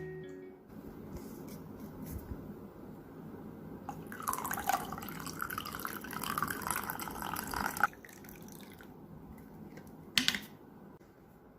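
Water running and dripping: a low trickle, then a louder stream that begins about four seconds in and cuts off suddenly about four seconds later, with a short splash near the end.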